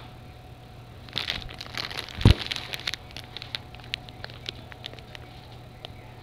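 Plastic packaging crinkling and crackling as it is handled, busiest from about one to three seconds in, with one louder knock just after two seconds, then a few scattered crackles.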